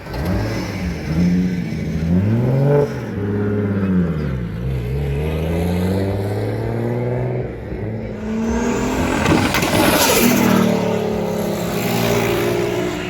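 Car engines revving and accelerating away, their pitch rising and falling several times, with the loudest, hardest acceleration about nine seconds in.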